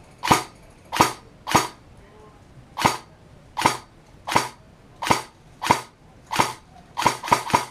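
Airsoft gun fired in single shots: about a dozen sharp pops with a short echo, roughly one every 0.7 seconds, then three in quick succession near the end.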